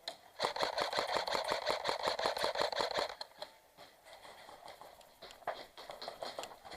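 Airsoft gun firing a full-auto burst of about two and a half seconds, roughly ten shots a second, followed by a few scattered clicks near the end.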